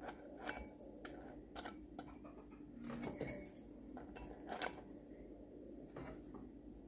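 Metal kitchen utensil clicking and scraping against a frying pan and a glass pot as fried potato pancakes are lifted across: a string of short, sharp taps, with the loudest a little after the middle. A faint steady hum runs underneath.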